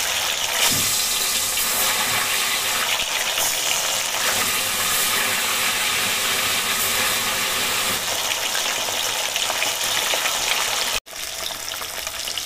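Pieces of carp (pona fish) frying in hot oil in a kadai, sizzling and crackling steadily. The sound cuts out for an instant about eleven seconds in, then carries on a little quieter.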